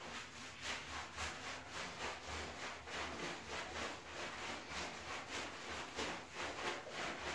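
Hands scrubbing shampoo into a wet Belgian Malinois's coat: quick, rhythmic rubbing strokes of wet fur.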